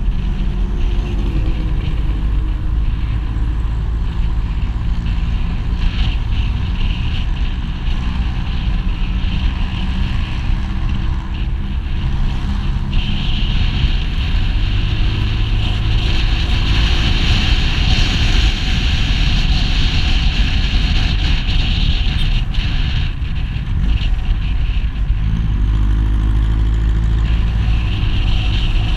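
Motorcycle engine running while riding along a road, its pitch rising and falling a few times with the throttle, under heavy wind noise on the microphone.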